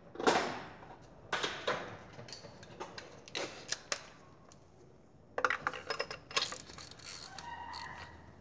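Metal hand tools clinking and clicking in irregular clusters of sharp clicks and knocks, the loudest just at the start, as tools are handled for a spark plug change.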